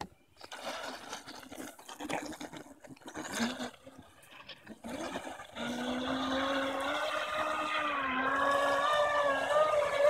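Surge Crusher RC catamaran running on the water: uneven splashing and hiss at first, then from about halfway the steady whine of its 2000kv brushless electric motor, the pitch wavering slightly with the throttle.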